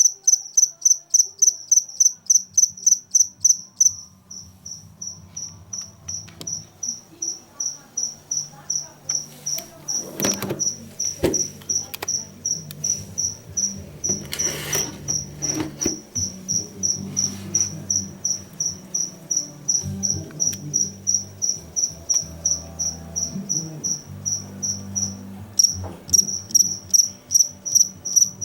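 A cricket chirping by rubbing its wings together, a steady train of high-pitched pulses at about three a second. It turns fainter after about four seconds and comes back to full strength near the end, with a few soft knocks and rustles in the middle.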